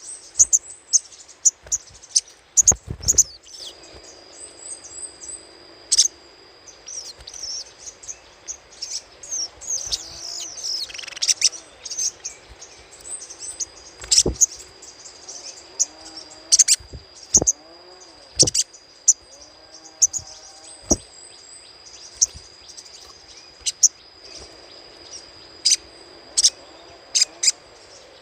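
Sogok ontong sunbird giving its crecetan call: rapid, sharp, high chips and short chattering runs at irregular intervals, with a steady thin high tone running behind.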